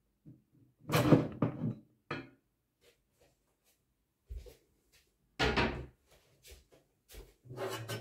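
Handling noise from a white steel PC case and its front glass panel: a series of separate knocks and clunks, loudest about a second in and again about five and a half seconds in, with smaller taps between and a last clunk near the end.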